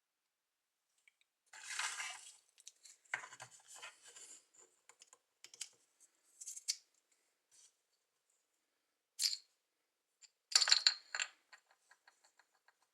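Metal objects being handled on a work surface: scattered clicks, scrapes and rustles, then a louder metallic clatter about ten seconds in that rings briefly.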